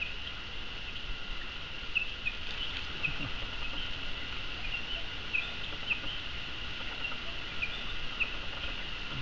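Capuchin monkeys giving short, high, falling peeps about once a second, over a steady drone of insects.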